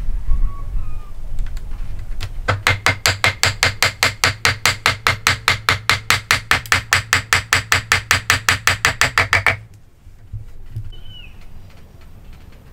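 A rapid, even run of hammer taps on wood, about five or six a second for some seven seconds, driving a tenoned rail home into the mortise of a wooden post in a nail-free joint; the tapping stops abruptly.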